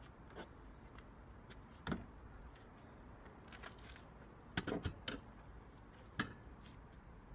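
Scattered knocks and clicks from handling work inside a car: one about two seconds in, a quick cluster of several near the middle, and one more a little later.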